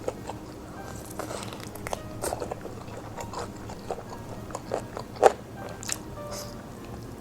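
Crispy fried chicken being bitten and chewed close to the microphone: irregular crunches and mouth clicks, the loudest crunch about five seconds in.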